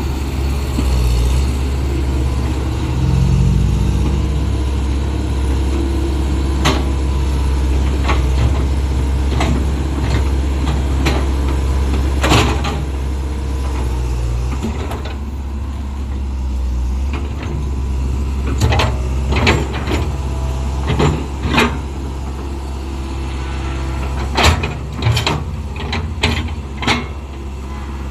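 Excavator's heavy diesel engine running steadily and revving up about three seconds in, with repeated sharp metal clanks and knocks, coming in quick clusters in the second half.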